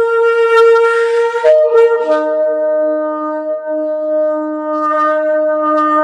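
Ram's horn shofar blowing a long, loud held blast. About a second and a half in, the note jumps up in pitch with a breathy overblow, and a lower steady note joins beneath it for the rest.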